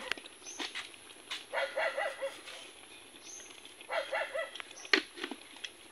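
An animal calling twice, about two and a half seconds apart, each call under a second long with a wavering, stepped pitch. A few sharp clicks fall between the calls, the loudest about five seconds in.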